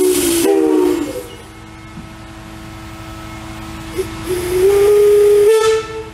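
Antique brass steam whistle blown on compressed air, sounding two blasts. The first is short and trails off about a second in. The second starts about four seconds in, rises in pitch as it opens up, and cuts off with a puff of air near the end; a faint steady tone hangs on between the blasts.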